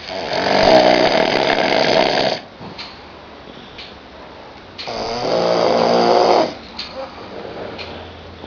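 A person snoring very loud: two long snores, each about two seconds, the second starting about five seconds in, with a much quieter stretch between them.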